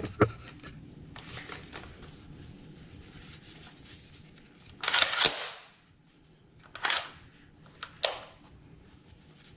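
Metallic clicks and a short rasping slide from handling the reassembled Browning BAR Mark 3 semi-auto rifle. The loudest is a half-second rasp about five seconds in, followed by sharp clicks about two and three seconds later.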